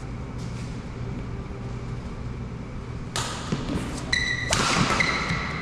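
Badminton play on an indoor court: from about three seconds in, sharp racket-on-shuttlecock strikes, shoes scuffing and a brief high squeak of a sole on the court mat, over a steady low hum.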